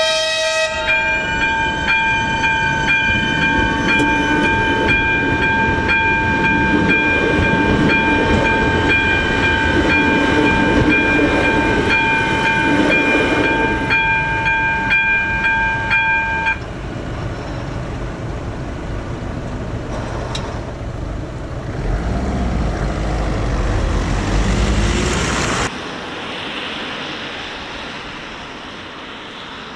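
Level-crossing warning bell (AŽD ZV02 electronic ringer) ringing steadily, with a short train horn blast right at the start, while a ČD class 640 RegioPater electric multiple unit approaches and passes over the crossing. The bell stops abruptly about halfway through; a heavy low rumble follows for a few seconds and cuts off sharply near the end.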